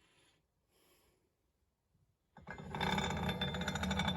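Rough, rasping scrubbing as old dried grease and grime are cleaned off a bench vise part. It starts about two and a half seconds in and lasts about three seconds, with a fast, even texture.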